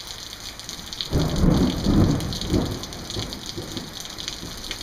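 Steady rain pattering, with a peal of thunder rumbling in about a second in and dying away over the next two seconds.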